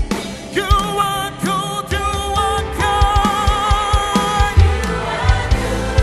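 Live gospel worship music: a voice singing held, wavering notes over a band with bass and a steady drum beat.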